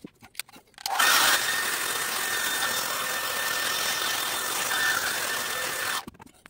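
Handheld hair dryer running with a steady rush of air and a thin high whine, switched on about a second in and off near the end, heating window-insulation shrink film to pull it tight. A few small clicks come before it starts.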